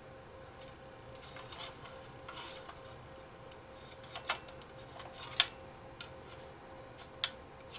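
Hard drive being handled and fitted into a desktop PC's metal drive cage: soft scraping and rubbing, then a few sharp clicks and taps, the loudest about five seconds in.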